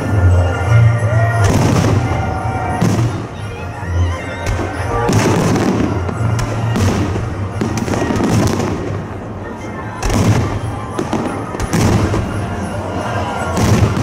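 Fireworks display: shells bursting in quick succession, a bang every second or so, with music playing underneath.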